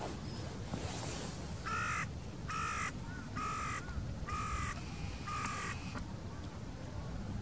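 A wild bird calling five times: short, harsh calls about a second apart. Under them runs a steady low background rumble.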